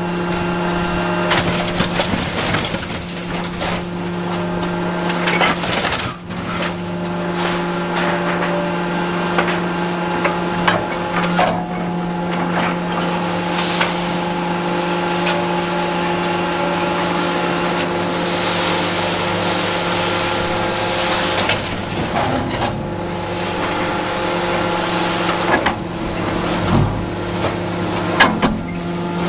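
Excavator engine running steadily with a hydraulic whine that shifts in pitch, while the hydraulic grapple handles stone, giving scattered knocks and clunks.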